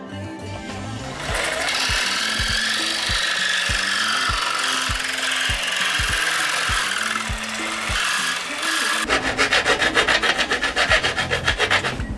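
Cordless jigsaw cutting a perforated metal sheet, a loud steady rasping saw noise that starts about a second in. For the last few seconds it turns into a rapid pulsing rasp.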